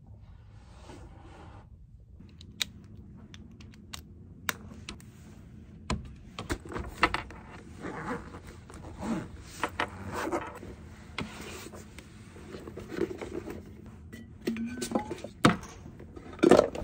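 Handling and packing belongings at a wooden desk: sharp clicks and knocks of small objects being picked up and set down, with rustling and scraping of a laptop sleeve and a canvas tote bag. The loudest knocks come near the end.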